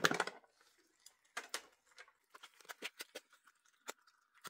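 Faint scattered clicks and taps as the electric lunch box's lid is opened and a fork stirs pasta in its stainless steel container.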